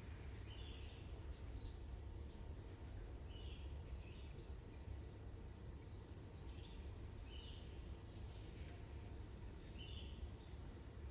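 Small birds giving short, high chirps, several in quick succession early on and then scattered, over a steady low background rumble.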